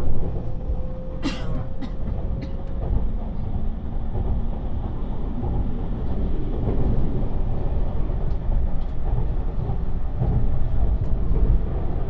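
Cabin noise of a JR 651 series electric train under way: a steady low rumble of wheels on the rails. A few sharp clicks come between about one and three seconds in.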